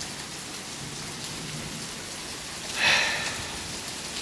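Steady hiss of a heavy downpour of rain mixed with hail falling on the ground and nearby surfaces, with a brief louder hiss about three seconds in.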